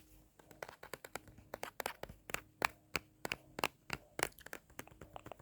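A quick, irregular series of sharp, close-up taps and clicks, about twenty over five seconds, as from fingers tapping or handling a small object right next to the microphone.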